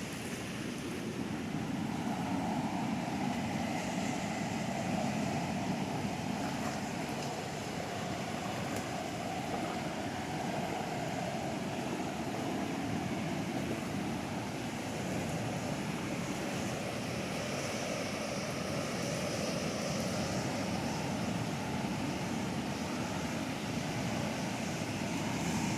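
Steady rush of a rain-swollen river running high and swift, with water pouring over falls.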